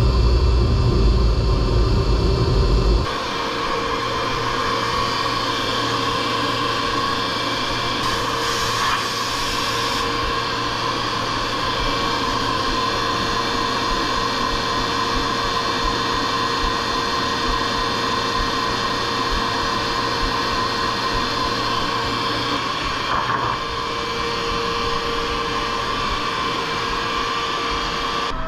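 Holzher Pro-Master 7125 five-axis CNC machining centre running. A deep low rumble stops abruptly about three seconds in and gives way to a steady rush of machine noise with a constant whine and a low hum. A brief brighter hiss comes about eight seconds in.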